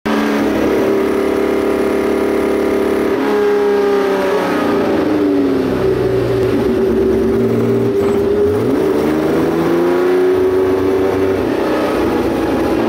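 Porsche 910 race car's engine heard from its open cockpit, running at steady revs, then the revs falling off about three seconds in, climbing again after about eight seconds and falling near the end as the car slows.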